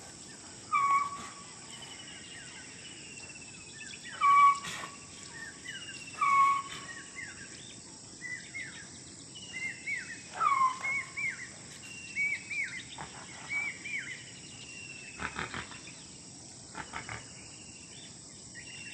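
Several wild birds calling: a loud short note repeated four times, with thin falling whistles and quick chirps between, over a steady high hiss of insects.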